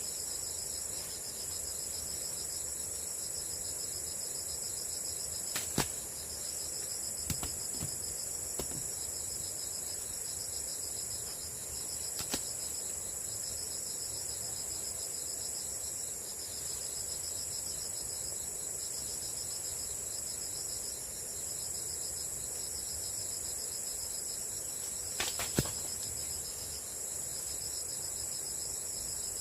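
Insects chirring without a break: a steady high-pitched whine with a faster pulsing trill just beneath it. A few sharp clicks sound now and then, several near the start and a pair near the end.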